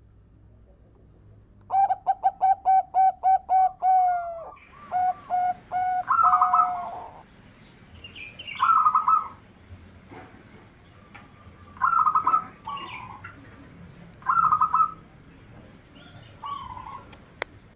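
Zebra dove (perkutut) cooing: a rapid run of about nine short coos, then further notes. After that come short cooing phrases every few seconds. There is one sharp click near the end.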